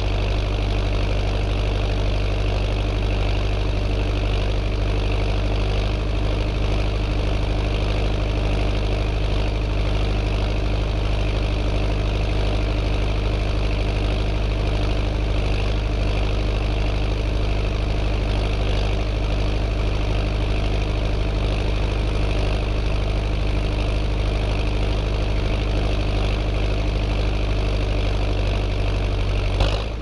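John Deere 6230 tractor's four-cylinder diesel engine running steadily at low speed as the tractor drives slowly, heard from outside the cab. A short click sounds near the end.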